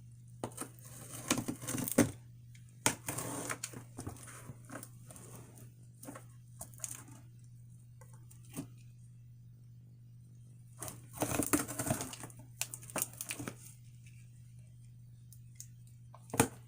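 A cardboard shipping box being opened by hand: packing tape and cardboard tearing and scraping, with crinkling and sharp clicks in irregular bursts, busiest about a second in and again about eleven seconds in. A steady low hum runs underneath.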